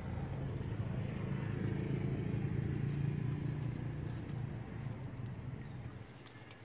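A motor vehicle's engine hum that swells, peaks about three seconds in, and then fades away, as a vehicle passes by.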